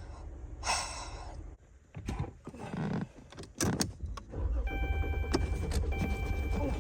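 A car engine being cranked in several short, uneven bursts that does not catch. About four and a half seconds in, a steady low drone takes over.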